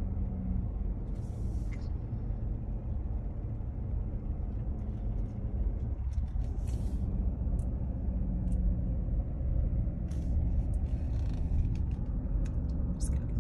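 Steady low road and engine rumble inside the cabin of a slowly moving car, with a few brief faint ticks.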